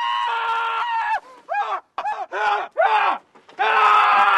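A man screaming. A long, high held scream comes first, then a string of short wailing cries that rise and fall in pitch, and another long scream near the end.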